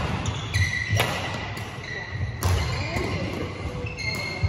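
Badminton doubles rally: sharp racket strikes on the shuttlecock, two about a second and a half apart, with shoes squeaking on the court floor and thudding footwork between shots.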